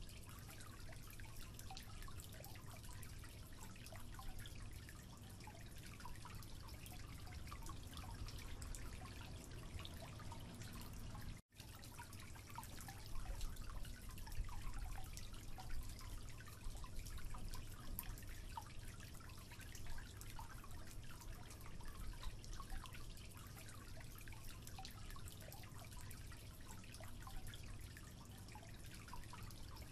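Water dripping from a faulty tap that does not shut off fully into a concrete sink below: irregular small drip ticks over a low steady rumble. The sound cuts out completely for an instant a little before halfway.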